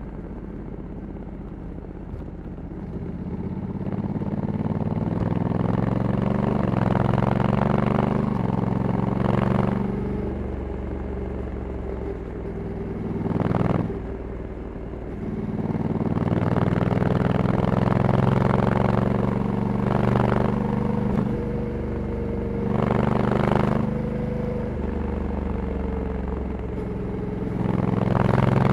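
2021 Honda Africa Twin DCT's 1100 cc parallel-twin engine on its stock exhaust, running at low revs, then pulling harder about three seconds in. It eases off and accelerates again a couple of times as the bike rides along.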